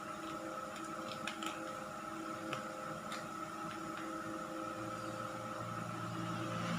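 A steady machine hum made of several held tones, with a few faint clicks in the first half and a low rumble that grows near the end.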